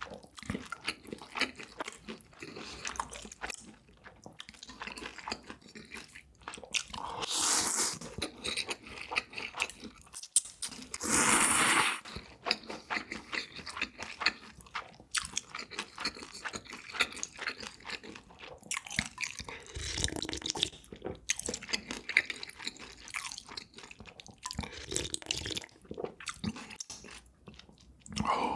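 Close-miked eating: a person chewing and crunching food with many small crisp clicks, broken by two longer, louder noisy stretches about a third of the way in.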